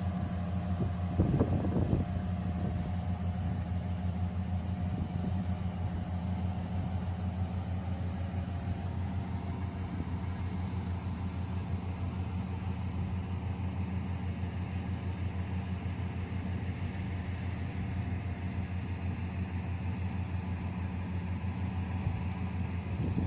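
Yanmar YH470 combine harvester running steadily with a low engine hum, with a brief clatter about a second in.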